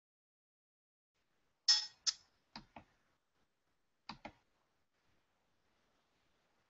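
Six short, sharp clicks in three pairs, each pair about a fifth of a second apart. The first pair is the loudest.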